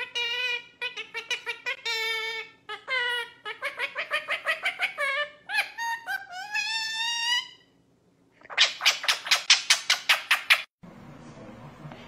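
High-pitched laughter from a woman and her yellow Indian ringneck parakeet, which mimics laughing, in quick giggling pulses that rise and fall in pitch. A louder, breathy run of about eight laughs comes near the end and cuts off into a low steady room hum.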